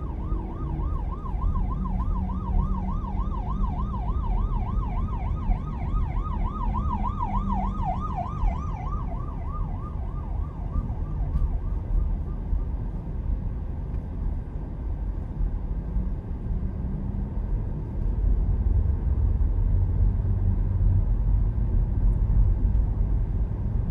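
Steady low road noise of a car driving on a highway, which grows louder about three quarters of the way through. For the first several seconds a siren wails quickly up and down over it, then fades out.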